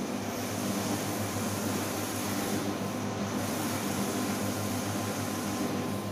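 Large-format inkjet banner printer running: the print-head carriage sweeping back and forth over a steady machine hum and whir. The hiss dips briefly twice, about three seconds apart.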